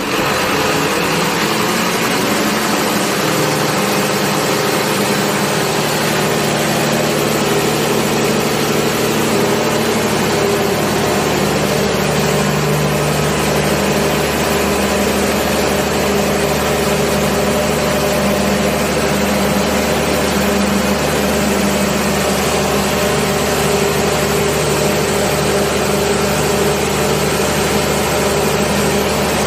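Ship's emergency generator six-cylinder diesel engine running steadily and loudly at speed on a test run, started by hand in local mode. The sound is one unchanging drone with no rise or fall in speed.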